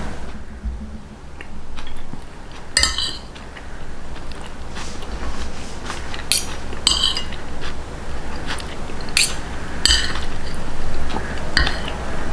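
Eating at a table: cutlery clinking against a plate about six times, with biting and chewing in between.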